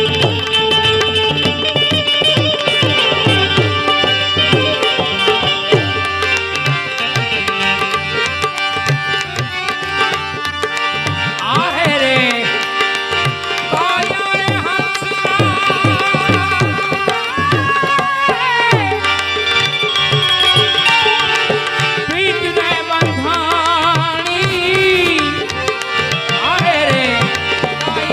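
Santvani devotional music: tabla playing a steady rhythm under a melody of held notes that waver and slide.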